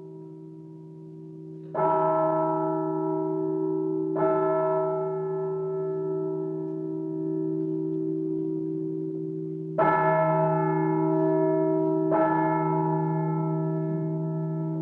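A bell tolled four times, in two pairs of strikes about two and a half seconds apart, with a pause of about five seconds between the pairs. Each strike keeps ringing and runs into the next, and the bell is already humming from an earlier strike at the start.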